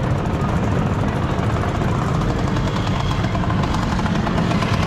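Motor scooter engines running with a steady, dense low rumble.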